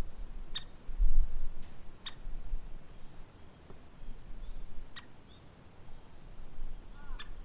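A woodpecker giving single sharp calls, four of them spaced a second or more apart. Faint high chirps of small birds sound in between, and a low rumble comes about a second in.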